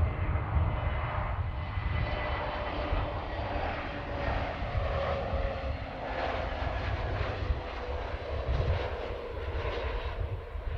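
Airbus A320neo airliner's CFM LEAP-1A turbofans at approach power: a steady jet sound with faint whistling tones over a low rumble as the plane passes on final approach, landing gear down, to land.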